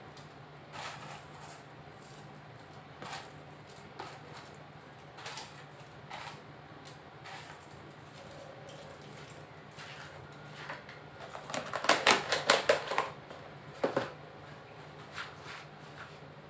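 Crisp fried garlic chips poured from a plastic container onto fried peanuts in a wire-mesh strainer: light scattered clicks and rustles, with a dense burst of crackly rattling about three-quarters of the way through. A faint steady hum runs underneath.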